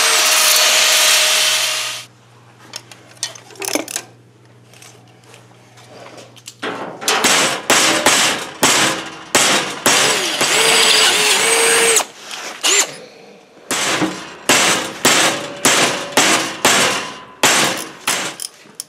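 Cordless drill boring through a steel strap clamped in a bench vise for about two seconds, then stopping. After a short lull, a hammer strikes the steel strap again and again to bend it in the vise, about two blows a second, each blow ringing off the metal.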